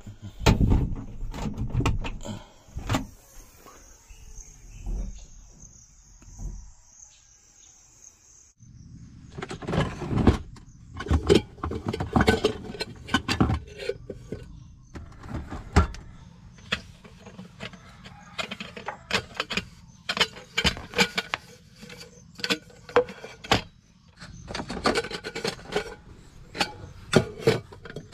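Clicks, knocks and rustles of gear being handled: a cloth bag and a kettle in a steel sink, over a low steady hum. A high steady buzz runs through the first eight or so seconds and then stops.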